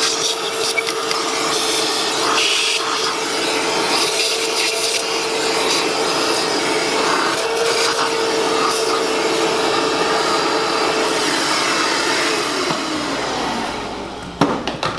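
Vacuum cleaner running with a steady whine, sucking gritty dirt out of the engine bay around the coil packs. Near the end it is switched off and the whine falls as the motor winds down, followed by a couple of sharp knocks.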